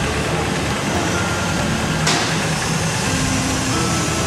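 An engine running steadily, with a single sharp knock about two seconds in.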